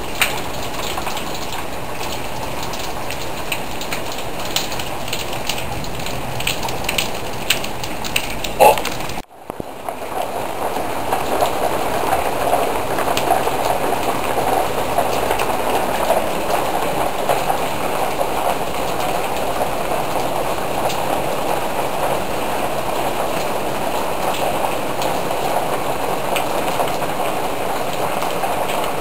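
Steady rain, with scattered drips and ticks at first. About nine seconds in there is a brief squeak, then the sound cuts off abruptly and comes back as a denser, steady rain hiss.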